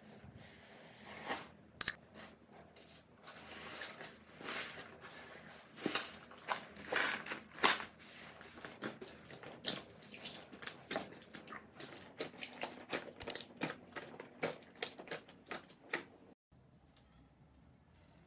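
Hands squeezing and pressing thick slime in a glass bowl: an uneven run of sticky clicks and small pops as trapped air bursts. It falls almost silent about two seconds before the end.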